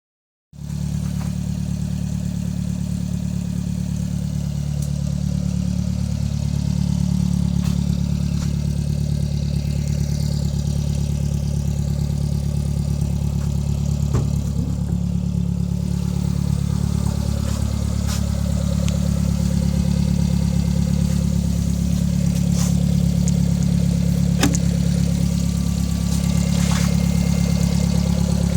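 Subaru Sambar's engine idling steadily through a custom exhaust made from a Suzuki GSX-R750 motorcycle silencer with a catalytic converter mounted inside it. The note is a deep, even hum that holds one steady pitch throughout.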